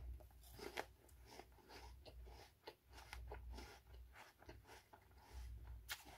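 Chewing a mouthful of raw apple: a quiet, steady run of small crunches and clicks, with a sharper click near the end.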